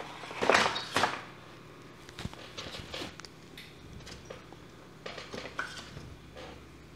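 Handling noises: two louder rustling scrapes about half a second and a second in, then scattered light clicks and taps, over a low steady hum.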